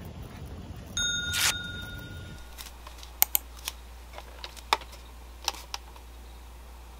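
A single ringing, bell-like ding about a second in. Then a string of short, sharp clicks as bare feet tap and step onto a glass bathroom scale.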